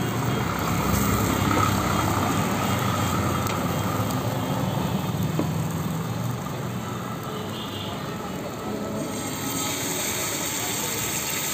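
Chopped onion, garlic and capsicum stir-frying in a nonstick pan, pushed about with a wooden spatula, over a steady low rumble.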